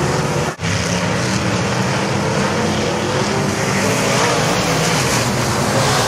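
A field of dirt-track modified race cars running at speed, their V8 engines blending into one steady loud drone, with a car passing close near the end. The sound drops out for a moment about half a second in.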